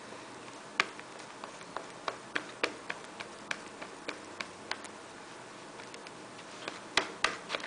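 Small metal spoon clicking and scraping against a clear plastic dish while mixing blush powder into gel: irregular light clicks, with two sharper ones near the end.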